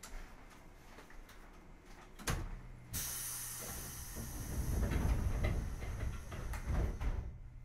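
Compressed-air hiss aboard a JR East 205 series commuter car standing at the platform: a knock about two seconds in, then a sudden hiss that runs about four seconds and cuts off, with low rumbling and thuds beneath it, as the air-operated doors work.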